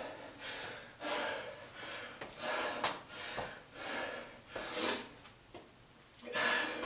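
A man breathing hard after a high-intensity exercise interval, winded and recovering, with about one heavy breath a second. The loudest, sharpest exhale comes about two-thirds of the way through.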